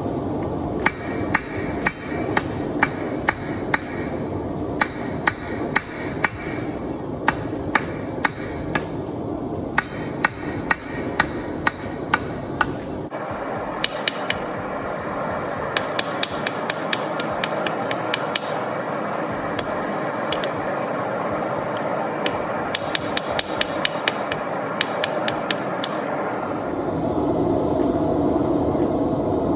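Hand hammer striking hot steel on an anvil in runs of blows, about two a second, the anvil ringing with each strike while the hammer head is forged. The strikes come faster from about halfway through and stop near the end. A steady rushing noise runs underneath.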